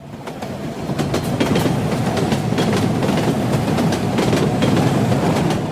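Train running on rails: a steady rumble and rush with the wheels clicking over the rail joints, fading in at the start.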